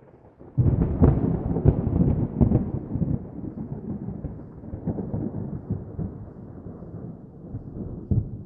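A thunderclap: a sudden crack about half a second in, then a low rumble full of crackles that rolls on and slowly fades, with another sharp crack near the end.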